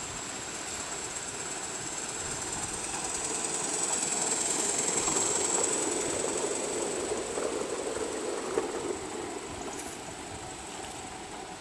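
O gauge model train running past on the garden track, its running noise swelling to its loudest about halfway through and then fading as it draws away. A steady high whine sits over it throughout, and there is a single sharp click near the end.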